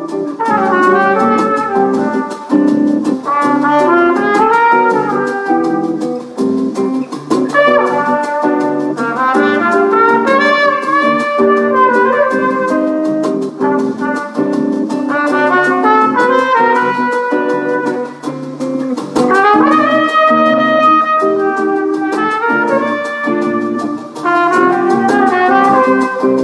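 Trumpet playing a jazz melody in phrases, over a bossa nova accompaniment with guitar.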